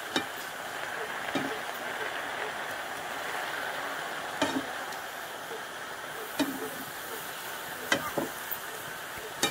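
Chopped leafy greens sizzling in a pan over a wood fire, with a steady hiss, while a wooden spatula stirs them and knocks sharply against the pan about every second or two.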